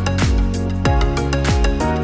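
Background music with a steady beat: electronic kick drum and sustained pitched tones.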